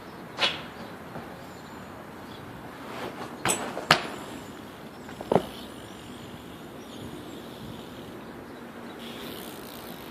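A BMX bike being ridden, with four sharp knocks from the bike hitting the ground; the loudest comes about four seconds in, as a pair of knocks close together. Steady background noise runs under them.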